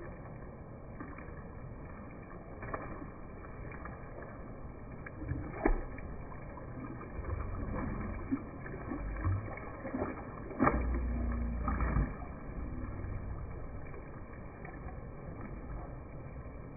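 Slowed-down outdoor ambience: a dull, low, rumbling wash of noise with no speech. A sharp knock comes about six seconds in, and another about eleven seconds in, followed by a second of louder rumble.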